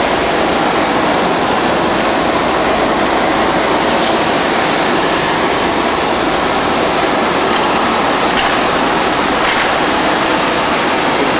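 Shrink-wrap packaging machine running: a steady rushing noise from its hot-air blower and heat tunnel, with the conveyor carrying bundles of aerosol cans through.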